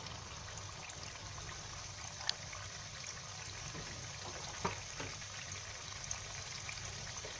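Strands of gram-flour dough deep-frying in hot oil over a low flame: a steady, quiet sizzle with a few small pops.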